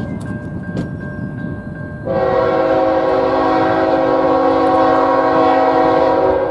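Air horn of an approaching locomotive sounding one long, steady blast of several notes at once, starting about two seconds in and held for about four and a half seconds, over the low rumble of the train.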